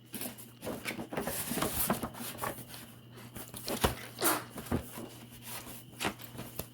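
Paper packaging being handled: rustling and crinkling with scattered small taps and clicks.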